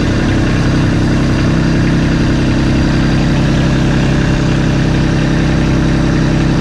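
Kubota LX2610 compact tractor's three-cylinder diesel engine running steadily.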